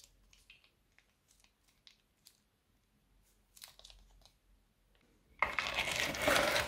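Soft crinkling and small clicks of a plastic piping bag being squeezed and clipped shut, then about five seconds in a loud, dense crackling as a silicone spatula starts stirring crunchy slime.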